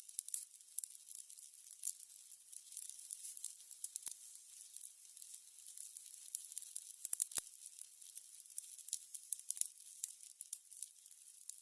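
Burning candles crackling: a constant, irregular patter of small high-pitched crackles and ticks, with a few louder pops about four seconds in and again past seven seconds.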